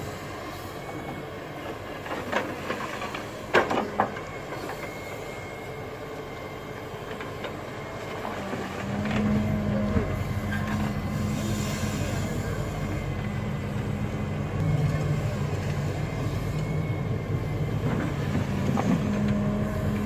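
Volvo wheeled excavator's diesel engine running as it digs and swings its bucket, with a few sharp metallic clanks about two to four seconds in. About nine seconds in the engine grows louder and holds a steady drone under load.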